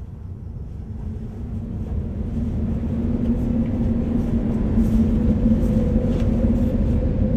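A deep rumble with a steady low hum that swells louder over the first five seconds or so, then holds.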